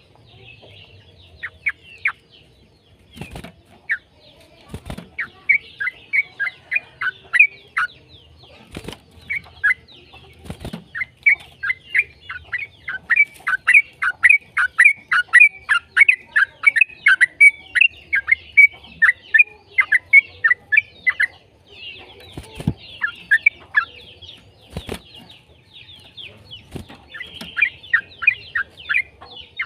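Yellow-vented bulbul (trucukan) singing a fast chattering song of short falling notes, about three a second, densest in the middle and again near the end. A few sharp knocks sound between the phrases.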